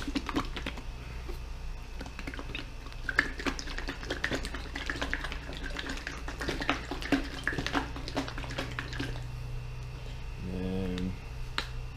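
A plastic bottle of Meguiar's Ultimate Polish being shaken hard, the liquid sloshing and the bottle knocking in quick repeated strokes for about nine seconds. Near the end comes a short voice-like sound.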